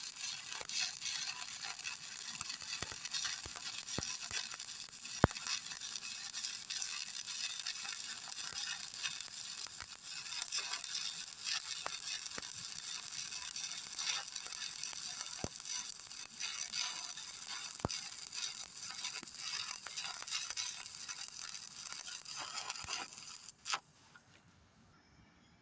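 Electric stick-welding arc crackling and sizzling steadily, with scattered sharp pops, then cutting off suddenly near the end as the arc is broken.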